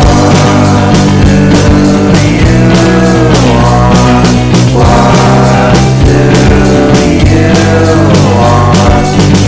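Background rock-pop song with a sung vocal line over guitar and a steady bass.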